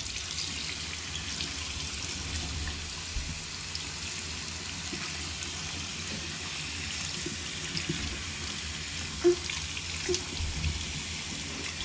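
Bathroom sink faucet running steadily, its stream splashing onto a child's cupped hands, with two brief sounds about nine and ten seconds in.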